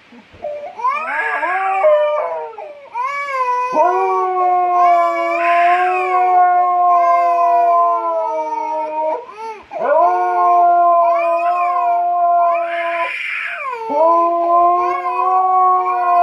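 Siberian husky howling in long, drawn-out notes held at a steady pitch, each a few seconds long, breaking off briefly and starting again several times.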